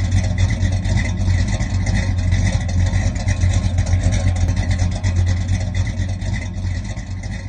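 Car engine running steadily with a deep rumble, easing off a little toward the end.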